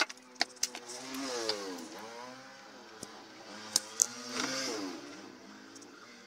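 A small vehicle engine revving up and down twice, its pitch sweeping, with sharp clicks and taps of tools and parts handled on a wooden bench near the start and just before the second rev.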